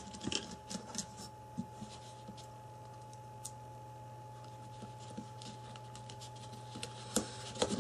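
Light plastic clicks and taps from a Samsung Galaxy Ace's back cover being fitted and pressed onto the phone by hand. A few come in the first couple of seconds, then a quiet stretch, then a few more near the end.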